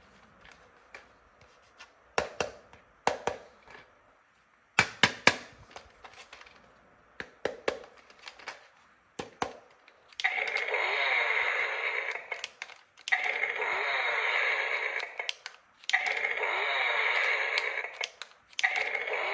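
Plastic toy tools being handled, with scattered clicks and taps, then a battery-powered toy power tool switched on four times in a row. Each run is a steady buzz lasting two to three seconds.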